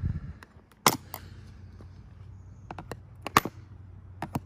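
Spring-steel retaining clips on a Harley-Davidson Night Rod Special's plastic airbox cover snapping open as they are pried with a flathead screwdriver. There are several sharp clicks, the loudest about a second in and about three and a half seconds in.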